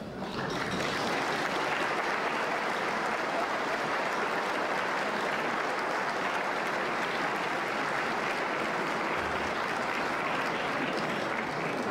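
Audience applauding, sustained and steady.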